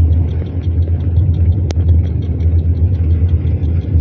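A car driving along a road, heard from inside the cabin: a steady low rumble of engine and tyre noise. One short click comes about halfway through.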